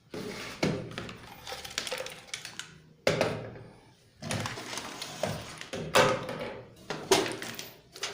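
Empty metal computer case being handled, with a series of knocks and rattling clatters as it is moved about.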